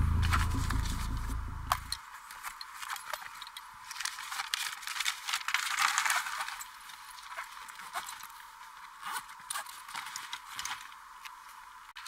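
A low rumbling drone that cuts off about two seconds in, then thin, rustling noise with many irregular clicks and taps, loudest around the middle.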